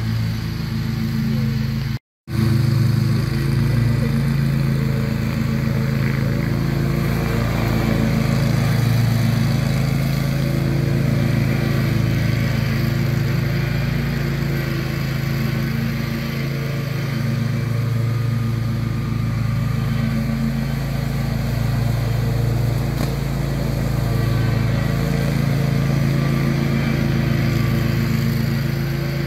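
Toro zero-turn riding mower's engine running steadily under load as it cuts grass, with a slight rise and fall in level as the mower turns; the sound cuts out for a split second about two seconds in.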